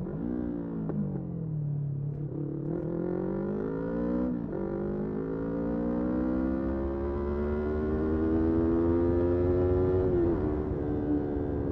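Motorcycle engine pulling under acceleration, its pitch climbing steadily and dropping sharply at upshifts about four and a half seconds in and again near the end.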